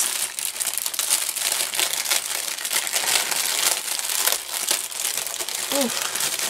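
Plastic wrap around a large pack of diamond-painting drill bags crinkling and crackling continuously as it is handled by hand.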